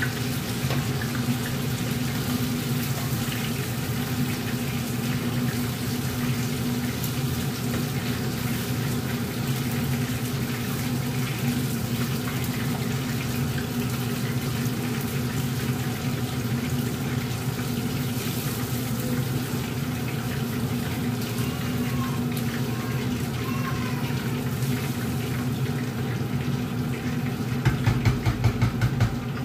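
Oil sizzling steadily as battered fish fillet pieces deep-fry in a pan, over a steady low hum. Near the end comes a quick run of clattering taps as the pieces are lifted out with a mesh strainer and wooden spatula.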